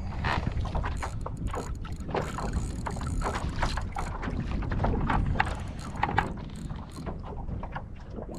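Wind buffeting the microphone over small waves slapping against a kayak's hull, with scattered short knocks and splashes.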